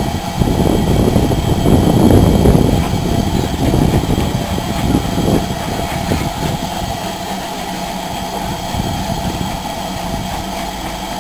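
Steam locomotive working along the line: a loud, rough low rumble for the first five or six seconds that then eases to a steadier, quieter running sound.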